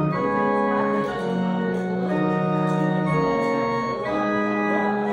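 Organ playing slow, sustained chords, the harmony changing about once a second.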